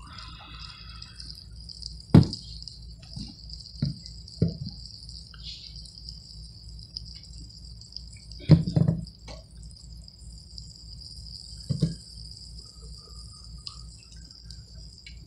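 A few sharp knocks and clinks of metal tools and copper-and-brass fittings being handled while a pipe joint is soldered, over a steady faint high hiss and low hum.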